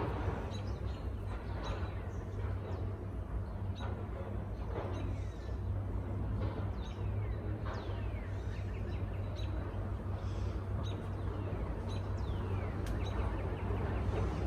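Birds chirping in short, quickly falling calls, repeated many times over a steady low rumble.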